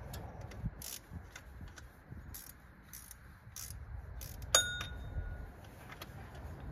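Hand tools working on an engine bolt: a few scattered light clicks, then one sharp metallic clink that rings briefly about four and a half seconds in, a steel wrench striking metal.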